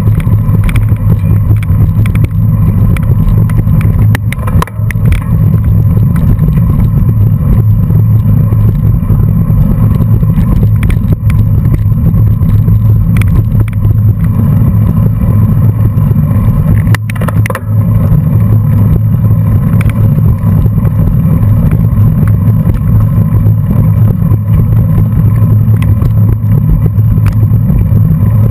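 Steady low rumble of wind buffeting and road vibration on a bike-mounted camera's microphone, riding in a pack of racing bicycles on a dirt road.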